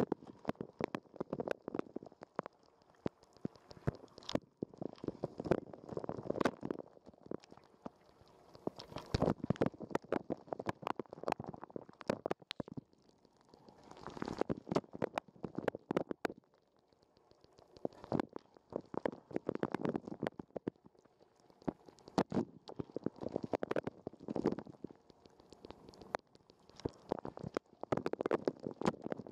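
Dishwasher wash cycle heard from inside the machine: water jets splashing and drumming against the camera, swelling about every four to five seconds as the rotating spray arm sweeps past.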